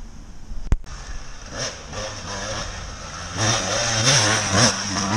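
A sharp knock less than a second in, then a dirt bike's engine revving as it approaches, growing louder over the last couple of seconds with the pitch rising and falling as the throttle is worked.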